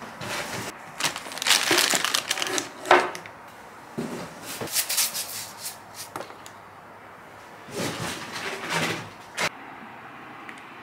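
Plastic grocery packaging rustling and crinkling as items are handled, with clicks and knocks of containers set down on a table, in three bursts with short pauses between.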